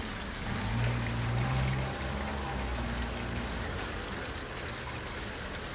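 Water running and trickling with rain onto wet concrete, an even hiss, with a low hum from about half a second in until about three and a half seconds in.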